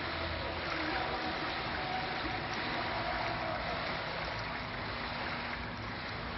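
Steady wash of water as a motorboat's wake laps against the riverbank, with a faint motorboat engine hum in the first few seconds.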